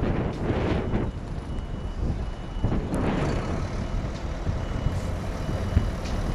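Low rumble of large vehicle engines, such as coaches, with gusts of noise swelling and fading. A faint high-pitched reversing alarm beeps on and off.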